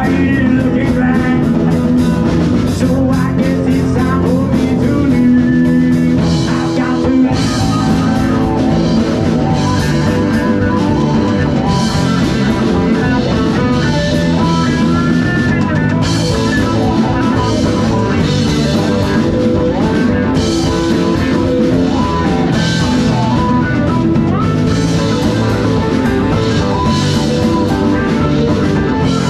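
Live rock band playing loud and steady through a PA: electric and acoustic guitars, bass guitar and a Pearl drum kit.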